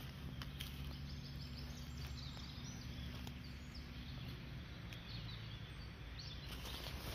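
Steady low outdoor background noise, with a small bird singing runs of short high notes from about a second in and again near the end.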